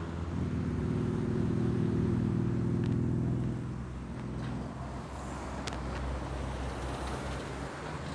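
Road traffic on the road below. A passing vehicle's engine is loudest over the first three seconds or so, then it eases to a steady traffic hiss.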